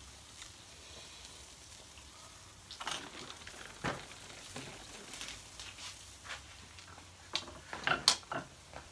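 Food sizzling on a charcoal grill, a steady hiss, with a knock about four seconds in as a plastic water bottle is set down on the table. Near the end comes a cluster of clatters from things on the table being handled, the loudest a single sharp clack.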